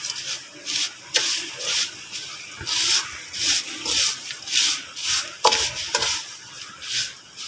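Dry vermicelli being stirred with a spatula as it roasts in hot oil in a pan: scraping, rustling strokes about twice a second, with the oil sizzling.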